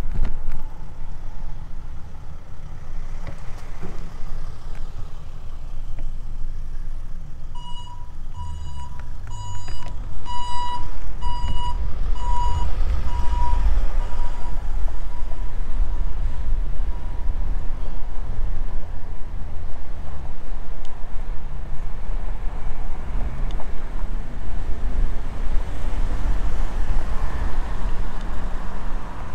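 Vehicle reversing alarm beeping about one and a half times a second for several seconds, getting louder and then fading away. Underneath is a steady low rumble that grows louder about a third of the way in.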